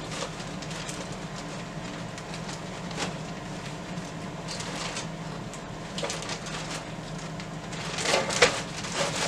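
Plastic zip-top bag of graham crackers crinkling and rustling as it is handled and sealed, with scattered light clicks, a few louder crinkles near the end, and a low steady hum underneath.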